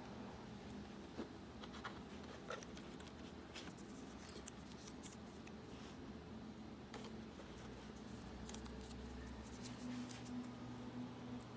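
Scattered faint clicks and taps, as of small objects being handled, over a steady low hum.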